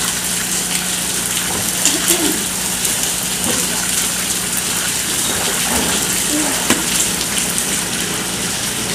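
Steady hiss of water falling and splashing, rain or a shower poured from a hose pipe, with a low steady hum beneath it.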